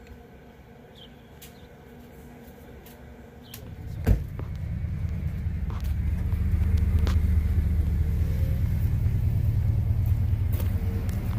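Quiet outdoor background, then a sharp click about four seconds in, followed by a loud, steady low rumble from then on.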